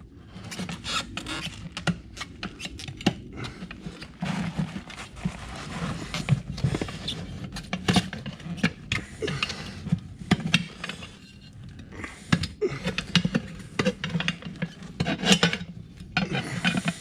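Hand tools scraping and clicking against a small ATV wheel rim as the tire is pried off, with many irregular short knocks and scrapes.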